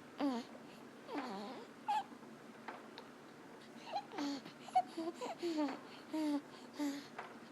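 Newborn baby's noisy breathing: a string of short, squeaky, pitched breath sounds roughly once a second, some dropping in pitch. This is stridor from laryngomalacia, soft floppy tissue above the voice box fluttering as the sleeping baby breathes.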